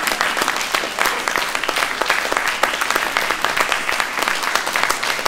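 Audience applauding steadily: dense, fast clapping from many hands, with no let-up.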